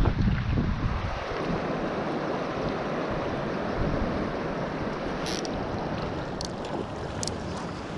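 Steady rush of river current flowing over a riffle. A low rumble fades out in the first second or so, and a few short, sharp clicks come in the second half.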